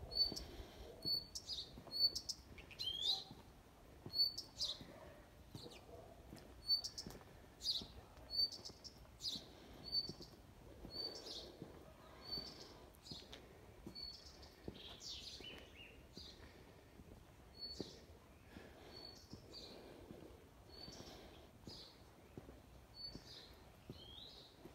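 Songbirds calling: one bird repeats a short high chirp about once a second, with a few other birds' calls mixed in.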